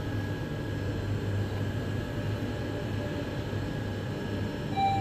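Mitsubishi Nexiez-MR machine-room traction elevator car travelling upward: steady ride noise with a low hum. A chime tone starts right at the end.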